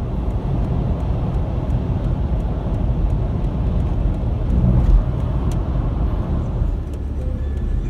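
Steady low rumble of a car driving, road and engine noise, with a slight swell about five seconds in.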